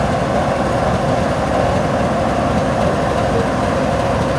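GE Evolution-series diesel-electric locomotive idling, a steady engine drone that stays even throughout.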